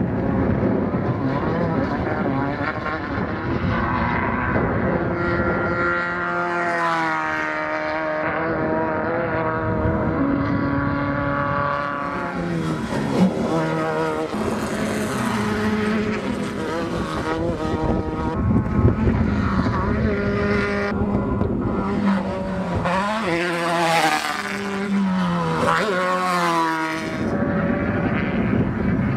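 Off-road race buggies passing at speed, their engines revving up and down through the gears in several pass-bys, with pitch sliding up and falling away as each goes by.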